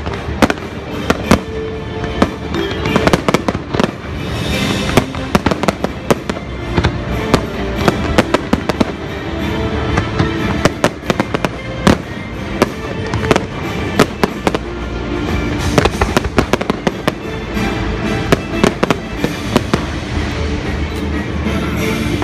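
A fireworks display: dozens of shells going off in quick succession, sharp bangs and cracks several times a second, over the show's loud soundtrack music.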